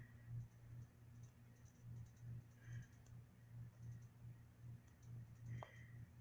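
Near silence with faint, scattered clicks and light handling noises from small plastic toy pieces being picked up and moved, over a low steady hum.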